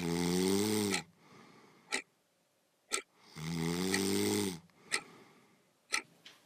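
A person snoring loudly: two long rattling snores about a second each, roughly three seconds apart, with short sharp clicks and faint breaths between them.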